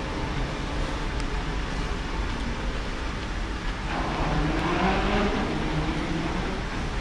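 Steady low rumble and hiss of an underground pedestrian passageway's ambience, with a brief pitched sound that bends up and down about four seconds in.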